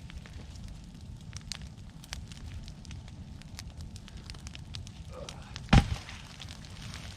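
Wood fire of cut pine and brush crackling, with scattered sharp pops over a steady low rumble. One much louder knock stands out near the end.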